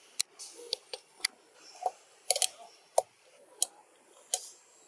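About ten short, sharp clicks at irregular intervals over a faint hiss.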